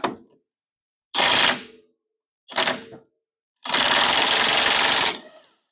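DeWalt cordless impact driver hammering on the lower shock-mount bolt of a UTV's front suspension, as the bolt is worked loose. Two short bursts are followed by a longer one of about a second and a half near the end.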